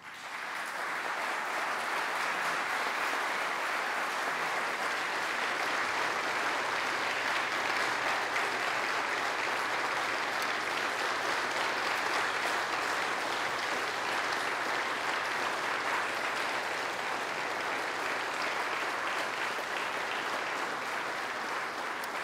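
A large crowd applauding steadily. It starts suddenly and goes on for over twenty seconds, easing slightly near the end.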